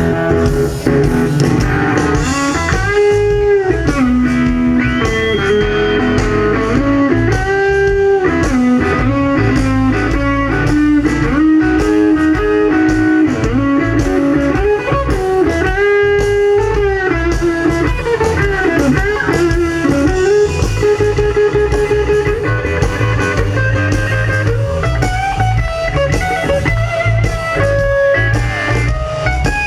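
Live electric blues guitar solo with bent notes that swoop up and back down, over bass and a steady beat.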